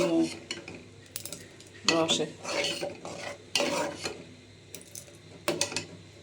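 Spoon stirring in a cooking pot, with a few short sharp metal clinks.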